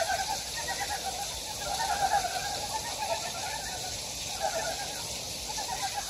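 A chorus of frogs calling together, many rapid pulsed croaks overlapping without a break, swelling louder about two seconds in and again near the end, over a steady hiss.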